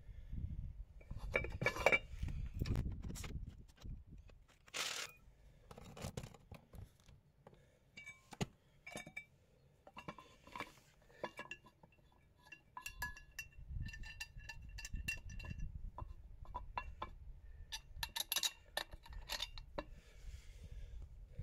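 Metal parts being handled, clinking and tapping against each other again and again, some knocks leaving short ringing tones.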